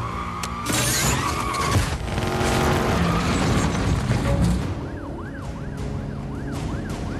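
Car-chase film soundtrack: the vault-pulling Dodge Chargers' engines and road noise under score music, with a police siren wailing in quick rising-and-falling cycles from about five seconds in.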